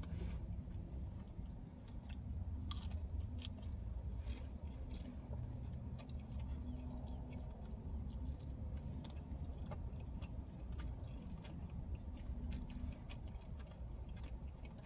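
A person chewing and biting thin-crust pizza close to the microphone, with scattered soft crunches and clicks of the mouth, over a steady low hum.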